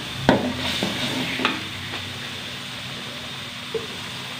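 A metal spatula clanks and scrapes against a stainless steel wok while spice paste sizzles in hot oil. There is a sharp clank about a third of a second in and a couple of lighter scrapes in the first second and a half, then steady sizzling.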